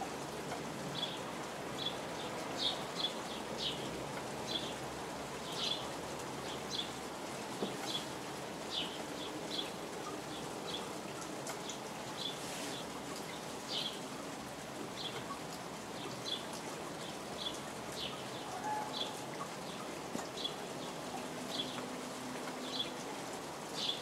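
Steady rain falling, with a bird giving short high chirps, about one a second.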